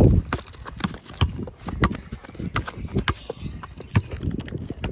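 Basketball bouncing on a hard court: irregular dull thumps, roughly one to two a second, with footsteps between them.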